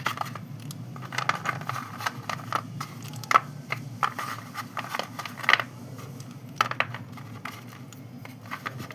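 Slate pencil and chalk pieces being crushed and handled: irregular crunches and sharp clicks, thinning out near the end, over a steady low hum.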